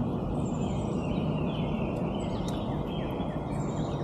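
Birds chirping and calling, short high notes and glides, over a steady outdoor rushing noise from river current or wind.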